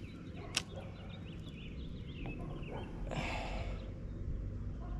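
Outdoor lakeside ambience: a steady low rumble with birds chirping in the background, a sharp click about half a second in and a brief rushing noise about three seconds in.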